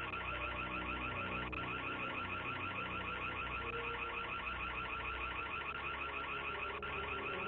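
An electronic security alarm siren sounding, a high, rapidly repeating warble that holds steady, apparently set off to drive intruders from the property.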